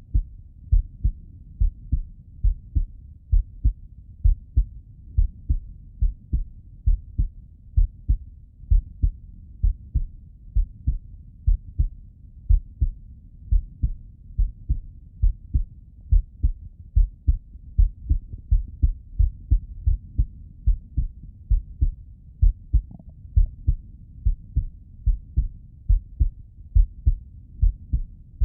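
A man's heartbeat heard through the bell of a Littmann stethoscope: a steady, even rhythm of low, muffled lub-dub thumps.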